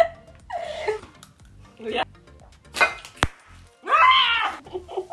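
Young women's voices in short exclamations and giggles, with a loud, drawn-out cry about four seconds in, over faint background music. A single sharp click comes a little after three seconds in.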